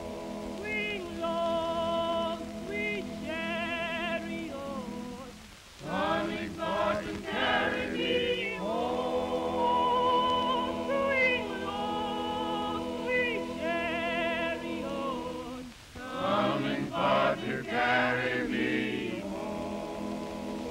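A choir singing a slow spiritual in long, held phrases with vibrato, pausing briefly for breath twice. It is heard as an old film soundtrack with muffled, narrow sound.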